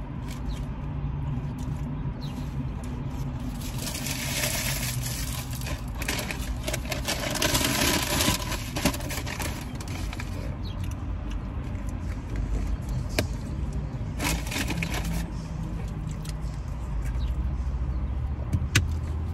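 Burrito eating: chewing and mouth sounds, with a paper burrito wrapper rustling for a few seconds starting about four seconds in, and a few sharp clicks later on. A low steady hum sits underneath.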